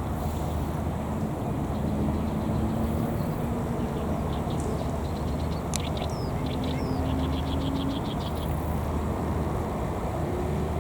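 Steady low rumbling outdoor noise with a constant hum underneath. A small bird chirps a few times, with a quick even run of about eight chirps in the middle.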